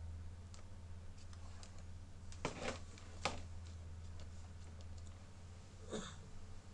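A few sharp computer mouse clicks, two close together about two and a half seconds in and one more just after, over a steady low electrical hum. A softer sound comes near the end.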